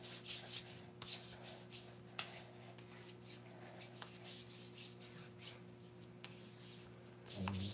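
Hands rubbing moisturiser into the skin of bare arms: soft, irregular skin-on-skin rubbing strokes.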